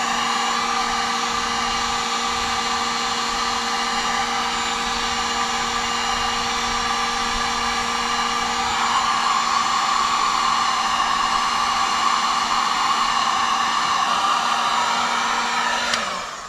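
Electric heat gun blowing steadily, with a motor hum, as it shrinks heat-shrink tubing over wiring connections. It gets a little louder about halfway through and is switched off near the end, its sound dying away quickly.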